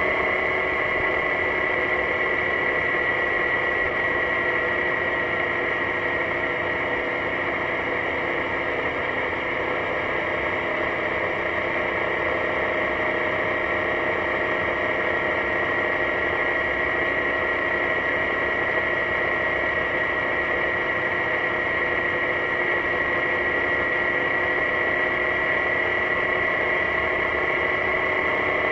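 BMW C650GT maxi-scooter running at a steady pace, its parallel-twin engine giving a constant drone with a high whine on top, over road noise.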